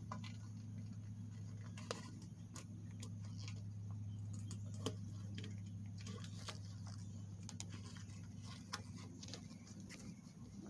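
Scattered small clicks and scrapes of hands working a rubber tire plug and a plastic zip tie through a hole in a tire, over a steady low hum.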